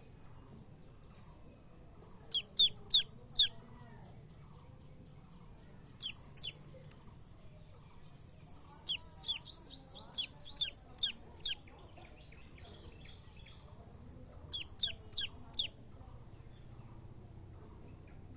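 Baby chicks peeping: loud, short, high-pitched notes that each fall in pitch, coming in quick groups of two to six with quieter gaps between.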